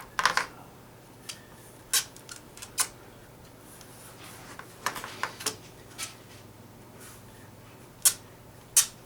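Handling noise: a scatter of sharp clicks and knocks, about a dozen, as the camera is being fitted back onto its tripod mount, with two of the loudest knocks near the end.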